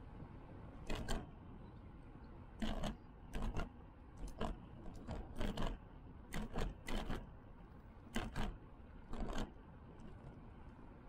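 Bicycle jolting over bumps in the path, rattling with short sharp knocks, mostly in quick pairs, about once a second over a low steady rumble.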